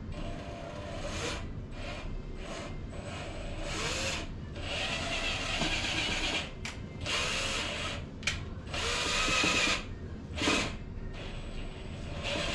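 Power drill driving screws into wooden planks in a series of short bursts, its motor speeding up and slowing down with each one.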